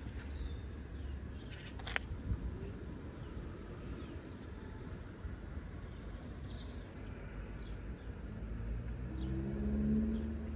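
Outdoor ambience with a steady low rumble of wind or distant traffic and a few faint bird chirps. There is a sharp click about two seconds in. Near the end an engine hum rises and grows louder as something approaches.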